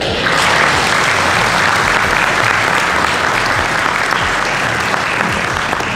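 A large audience applauding, a dense, even clapping that starts at once and eases slightly near the end.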